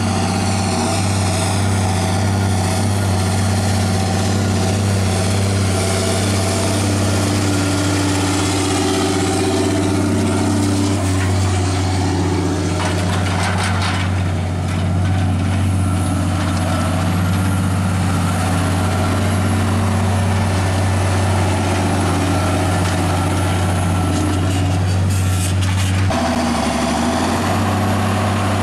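Straight-piped six-cylinder diesel of a Claas Axion tractor running steadily under load while pulling a field cultivator.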